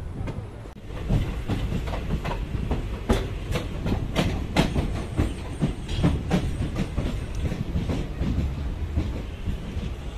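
Express passenger train running on, its coach wheels clicking irregularly over rail joints above a steady low rumble, heard from the coach's open doorway.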